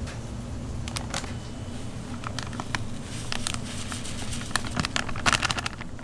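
Restaurant kitchen work: scattered clicks and clinks of utensils, with a quick flurry near the end, over a steady low hum.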